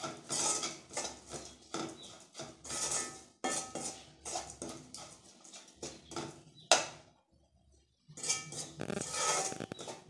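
Slotted metal spatula scraping and stirring a crumbly ground coconut-spice masala around an aluminium kadai as it fries, in repeated strokes. A sharp clack of the spatula on the pan comes about two-thirds through, followed by a pause of about a second.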